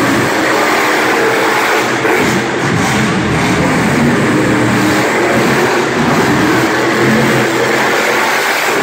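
Two monster trucks, Heavy Hitter and Bigfoot, racing with their engines revving hard, the pitch rising and falling throughout.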